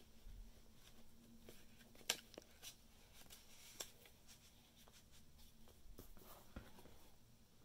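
Faint handling sounds of a paper journaling card being lifted and tucked back into a journal cover's acetate pocket: soft rustles and a few light taps and ticks, the sharpest about two seconds in.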